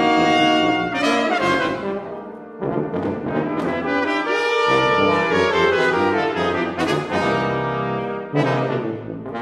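Brass quintet of two trumpets, French horn, trombone and tuba playing chamber music: held chords in several parts, broken by sharp accented entries several times, with a short drop in loudness about two and a half seconds in.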